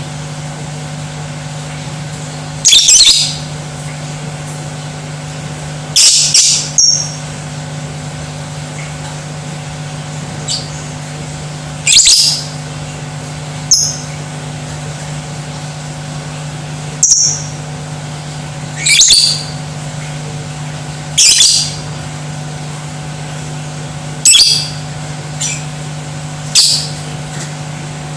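Lovebird giving short, shrill squawks, about a dozen of them, one every two to three seconds, over a steady low hum.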